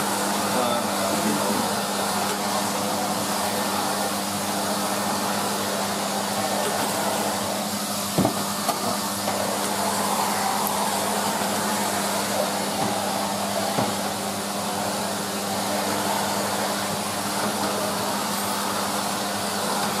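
Numatic Henry HVR200A cylinder vacuum cleaner running steadily, a constant hum over a rushing hiss, as its floor tool is pushed over a hard floor. A single knock comes about eight seconds in.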